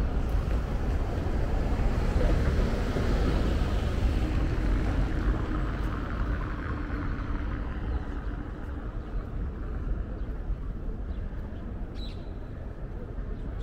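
Street traffic: a passing vehicle's engine and tyre noise, loudest in the first few seconds and then slowly fading away.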